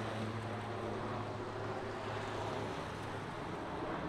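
City traffic on a wide avenue after rain: cars passing on wet asphalt with a steady tyre hiss and a low engine hum underneath.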